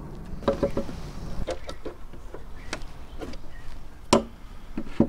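Scattered light knocks and clicks of hand tools, end-cutting pincers and a chisel, being handled against the wooden radio cabinet and workbench. The sharpest knock comes about four seconds in.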